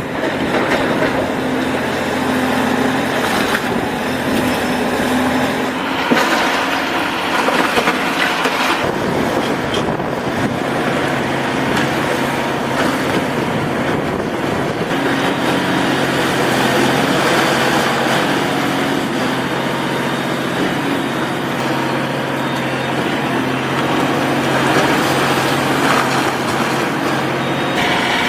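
Excavator's diesel engine running steadily under load, with a broad rumbling and clattering noise over it. The engine note shifts a few times as the machine works.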